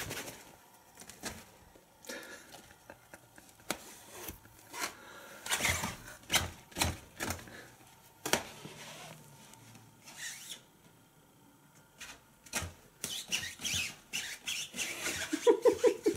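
Cat's claws scratching and raking at the nylon fabric of a pop-up play tent, in irregular rasping scrapes with short pauses between. A louder run of quick scrapes comes near the end.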